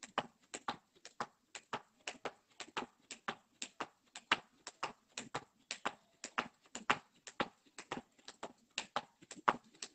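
Skipping rope slapping the paving slabs as trainers land with each jump: a steady run of quick taps, about two a second.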